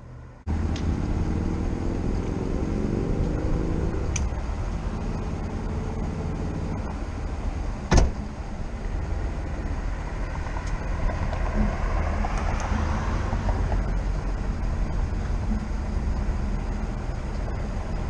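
Flatbed tow truck's engine running and pulling away, its pitch rising as it accelerates, cutting in abruptly about half a second in. A single sharp knock about 8 seconds in.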